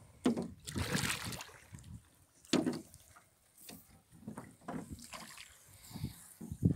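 Water splashing and sloshing around a small rowboat in several irregular bursts with quiet gaps between, the loudest about half a second and two and a half seconds in.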